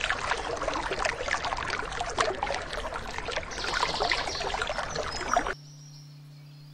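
A thin jet of water from a small hand water pump's tube spraying onto dry soil, a dense spatter of small splashes that cuts off suddenly about five and a half seconds in. A faint steady low hum follows.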